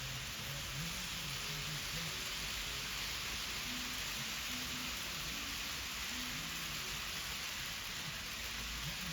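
Steady, even hiss, with a faint murmur of distant voices underneath.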